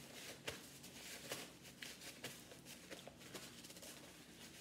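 Paper napkin crinkling and rustling as greasy fingers are wiped with it: a faint run of soft, irregular crackles.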